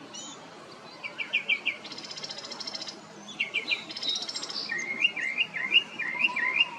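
Wild songbirds singing: a quick run of short notes, then a dry buzzy trill, the pair repeated, and a warbled zigzag phrase near the end.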